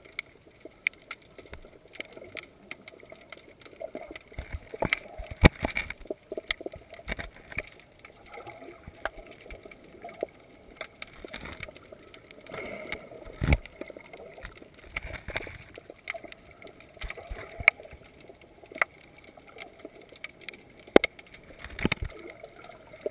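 Underwater sound recorded by a camera in a waterproof housing: a muffled, even water hiss with irregular sharp clicks and knocks scattered throughout, a few of them loud.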